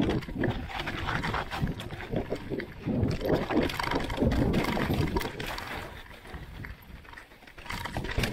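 Mountain bike ridden over rough dirt and rock: wind rushing over the microphone, the tyres rolling and the bike rattling with many irregular knocks.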